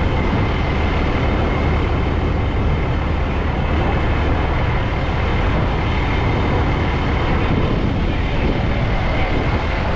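Heavy fire-apparatus diesel engine running steadily, a deep continuous rumble with a faint high whine over it.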